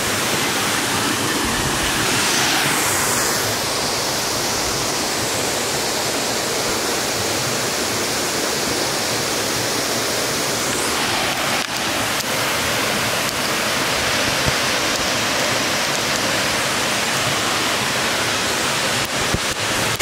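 Steady rush of a waterfall and the stream running over the rocks below it, with a few faint clicks about midway and near the end.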